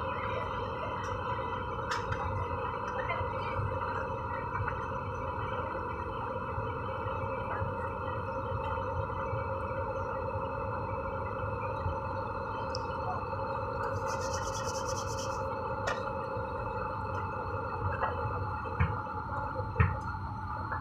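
Steady drone of an airliner cabin in flight, with engine tones held steady throughout. A brief high hiss comes about two-thirds of the way in, and two short knocks come near the end.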